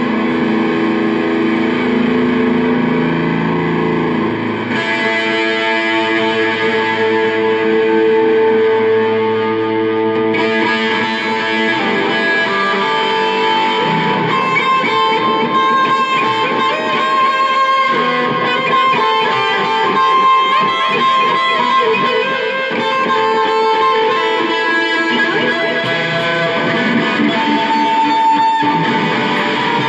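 Electric bass guitar played through a board of effects pedals and an amp in an instrumental passage: sustained, overlapping notes ringing out. The part shifts about five seconds in and turns brighter about ten seconds in.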